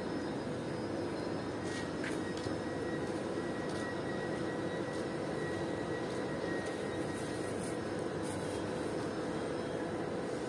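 A steady mechanical drone with a constant hum, as of a machine or large fan running, with a few faint rustles of jute gunny sacks being turned over.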